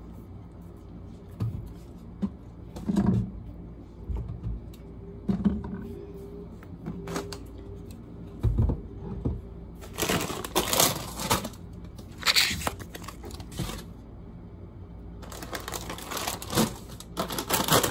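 Groceries being handled and put on pantry shelves: scattered knocks and thumps of cans, jars and boxes being set down, with a low thump about eight seconds in. Spells of rustling and scraping from about ten seconds in and again near the end.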